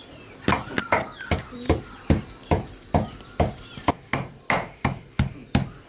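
Rapid, regular chopping with a blade on a wooden board: sharp strikes about two to three a second, starting about half a second in.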